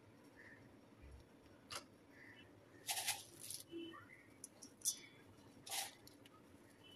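Faint kitchen handling noises: a few light clicks and two short scraping rustles as a spoon and containers are moved about beside a steel bowl of flour.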